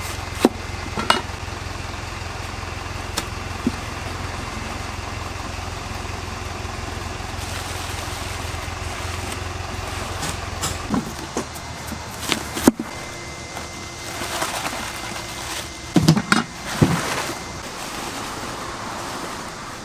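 Napa cabbages being split with a cleaver on a wooden chopping board and pulled apart by hand: scattered sharp knocks and a crisp leafy crackle, the loudest knock about two-thirds of the way through. Under them, a steady low engine hum from an idling vehicle stops about halfway.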